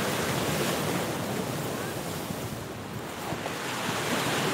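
Steady rushing noise of sea surf washing onto a rocky shore, mixed with wind on the microphone; it eases a little midway and swells again near the end.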